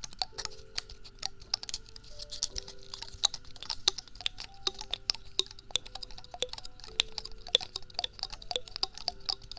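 Rapid, irregular clicking and tapping of small objects being handled for their sound, several crisp clicks a second. Faint background music plays underneath.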